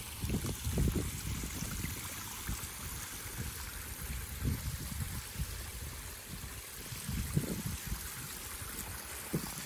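Koi pond water splashing and trickling from its spillway waterfalls and a bubbling outlet: a steady wash with uneven low rumbles.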